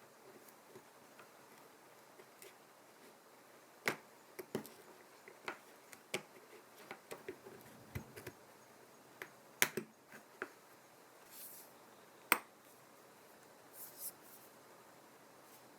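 Irregular small clicks and taps, with a few short brushing sounds, as small tools and parts are handled during an iPhone 7 battery replacement. The two sharpest clicks come about nine and a half and twelve seconds in.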